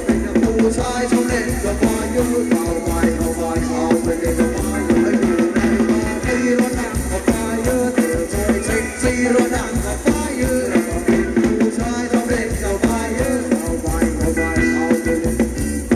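Live Thai ramwong band music with a steady drum-kit beat, played for the dancers.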